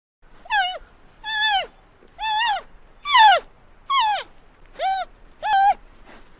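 An animal calling over and over: seven short, high-pitched calls about a second apart, each rising slightly and then falling away in pitch.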